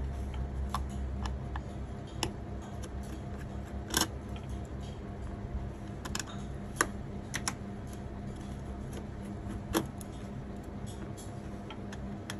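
Scattered clicks and light taps of a computer mouse and keyboard, a few of them louder, over a steady low computer hum.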